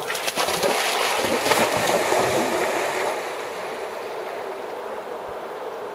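Water splashing for about the first three seconds over the steady flow of a fast river, which carries on alone after that.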